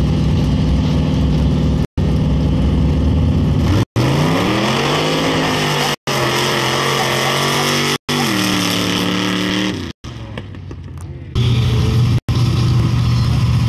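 Pickup truck engines running loud and accelerating hard, rising in pitch about four seconds in, holding high, then dropping off near ten seconds, with a loud engine running again near the end. The audio cuts out briefly about every two seconds.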